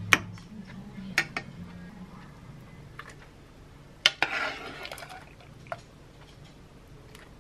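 Metal ladle clinking against the soup pot and ceramic bowls while tteokguk is served: about five sharp clinks, the loudest at the very start, with a short splash of soup poured into a bowl about four seconds in.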